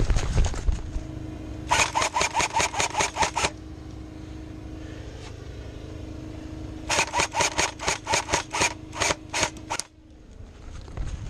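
Airsoft gun firing two quick strings of shots, about six a second: the first about two seconds in, lasting under two seconds, the second about seven seconds in, lasting nearly three seconds and ending with a few spaced-out shots. Running footsteps at the very start.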